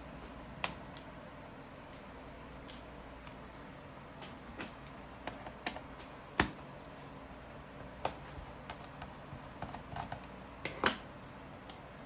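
Irregular clicks and taps on a laptop, a dozen or so, two of them sharper than the rest, over a steady low hum.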